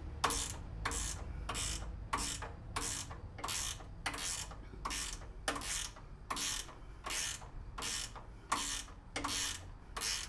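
Ratchet wrench clicking in quick, repeated back-strokes, about two or three a second, as it tightens the nuts on the snowblower's handle-mounting bolts.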